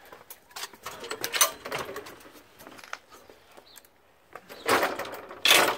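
Footsteps and handling noises of someone walking through a metal side gate, scattered scuffs and rustles with two louder noisy bursts near the end.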